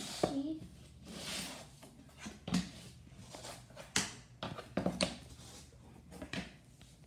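Scattered soft taps and light rustling of cardboard state puzzle pieces being handled on a wooden tabletop, with a brief murmured vocal sound just after the start.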